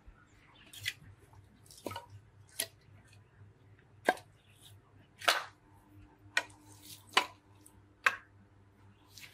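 Dry bark and sticks being handled, broken and dropped onto a pile: a series of about eight sharp cracks and clatters, the loudest about five seconds in.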